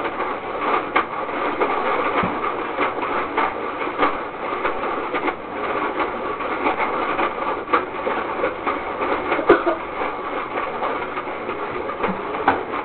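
Toy DQ ice cream maker being churned: a steady plastic rattle and grind of the mechanism turning through crushed ice, with many irregular clicks. This is the long churning stage that freezes the cream.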